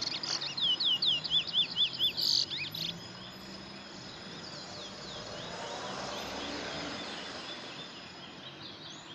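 Bullfinch (a seed finch kept as a singing bird) singing a fast run of sharp, downslurred whistled notes, about four a second, for the first three seconds. Fainter repeated chirping follows.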